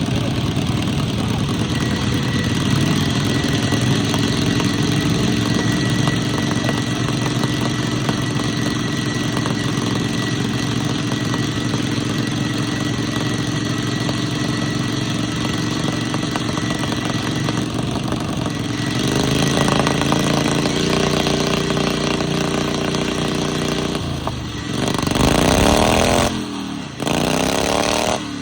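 Lawn mower engines running steadily, then revving up and down repeatedly near the end.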